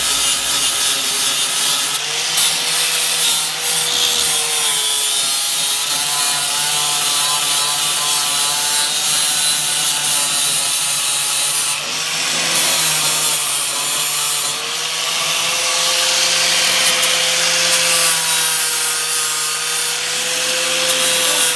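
Angle grinder with a flap disc grinding the car's underbody steel to bare metal for welding, running continuously with a motor whine that dips and rises as it is pressed on the metal.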